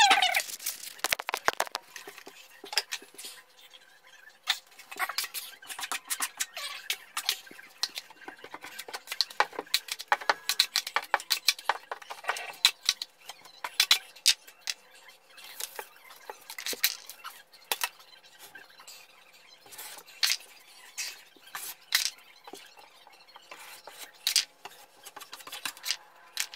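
Sped-up drywall taping: a metal taping knife scraping and tapping across joint compound and paper tape on a drywall joint, heard as a dense, irregular run of short scrapes and clicks.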